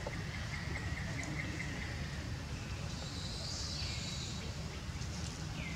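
Outdoor background noise: a steady low rumble with faint high animal calls over it, a thin steady tone in the first two seconds, then two short downward-gliding calls, one about four seconds in and one near the end.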